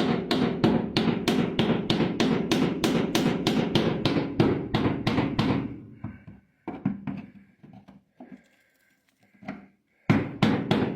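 Sheet-metal lip on a car body being tapped straight with Channellock pliers used as a hammer: quick metal-on-metal blows, about four a second. They stop about six seconds in, with a few lighter taps, and start again near the end.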